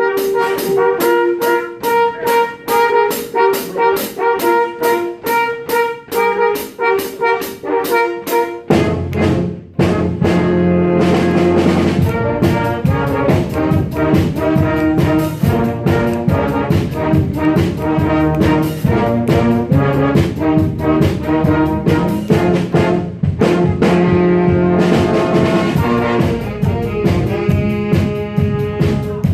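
A live band with brass playing a tune, starting on a count-off. For about the first nine seconds it plays short, evenly repeated chords. Then the full band comes in with low bass notes and denser playing.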